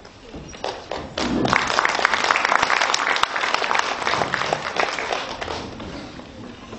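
Audience applauding: dense clapping swells about a second in and dies away near the end.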